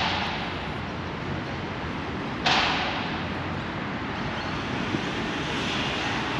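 Steady distant road traffic, broken twice by a sudden hiss that fades away over a second or so. The second hiss, about two and a half seconds in, is the louder.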